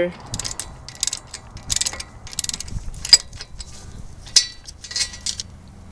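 Hand ratchet clicking in short bursts of back-strokes as it spins out a loosened brake caliper bracket bolt.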